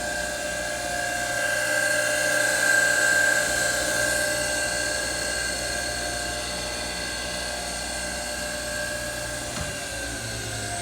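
Cheng Ying 18 x 6 inch surface grinder's three-phase spindle motor and grinding wheel running with a steady high whine made of several tones. Near the end there is a click, and one tone begins to fall.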